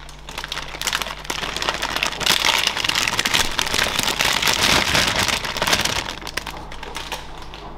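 Plastic bag of salad leaves crinkling and crackling as the leaves are shaken out onto a tortilla wrap, loudest in the middle and tapering off near the end.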